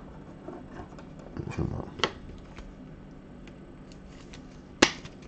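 Quiet handling noises: a few light plastic clicks and taps as a trading card is slid into a clear rigid holder and set on the table, the sharpest click near the end.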